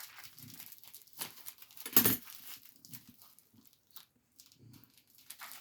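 A pet snuffling and moving about at an opened parcel, with light rustling of wrapping and one sharp click about two seconds in.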